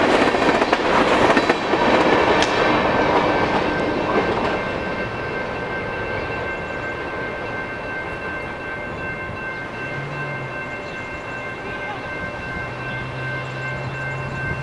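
Empty coal hopper cars rolling past with wheel clatter, loud for the first four seconds or so as the last car goes by. The sound then fades to a quieter steady rumble with a thin steady ringing as the train moves away.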